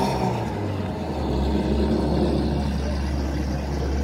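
Ferrari engine as the car pulls away slowly, with a short blip of revs at the start settling into a steady low rumble.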